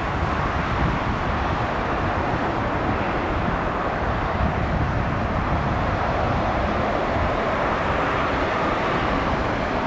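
Airbus A380's four Rolls-Royce Trent 900 jet engines at takeoff-climb thrust, a steady rumble and rush as the airliner climbs away.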